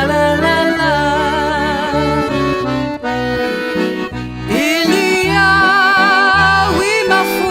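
Background music: an accordion-led tune with a wavering vibrato melody over a bass line stepping in a steady, bouncy beat.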